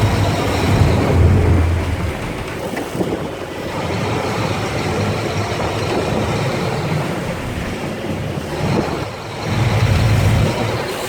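Boat engine running under a steady rush of noise, its low hum strongest in the first two seconds and again about ten seconds in.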